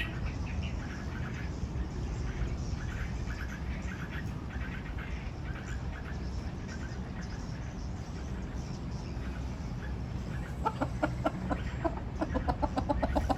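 Chickens clucking: soft short clucks at first, then from about ten seconds in a louder, quick run of clucks at about three to four a second.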